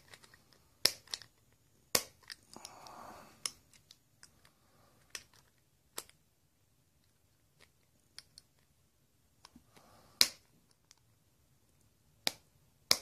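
Sharp, isolated clicks and taps from handling a baitcasting reel's spool and its small shaft pin as the pin is pushed and adjusted, spread irregularly, the loudest about ten seconds in, with a soft rustle around two to three seconds in.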